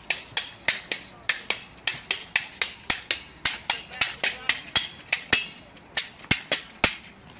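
Gatka sparring: weapons clashing against each other and against a small round shield in a rapid, steady run of sharp strikes, about four a second, some with a brief metallic ring.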